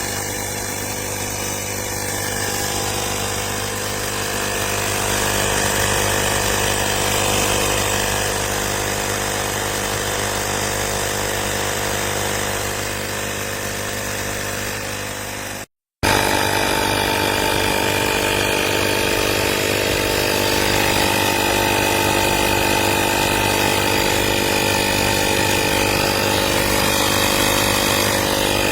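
AstroAI 12 V portable electric tyre inflator running steadily, its small compressor motor giving a continuous buzzing hum. It drops out for a moment about 16 seconds in, then runs on.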